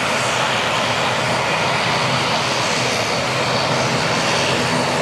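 ATR 72-500 turboprop with Pratt & Whitney PW127 engines running and propellers turning as the airliner taxis: a steady, unbroken engine and propeller noise.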